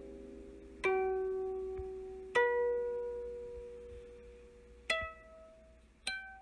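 Slow intro music on a plucked string instrument: four single notes, each plucked sharply and left to ring out and fade.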